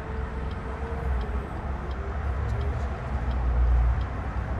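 Steady low rumble of engine and road noise heard from inside a moving car.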